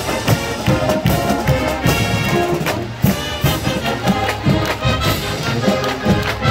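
College marching band playing: brass melody over a steady drum beat.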